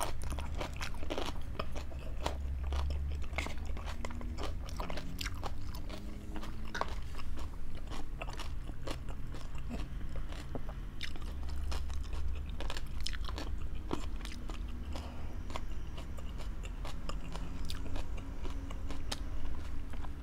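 Close-up chewing and biting of food, with frequent short, crisp crunches and wet mouth clicks, over a low steady hum.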